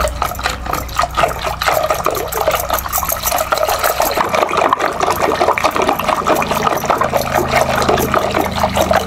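Wooden hand churner spun between the palms in a clay pot of thick mango pulp, a continuous wet sloshing and slapping as the mango is mashed smooth for aamras.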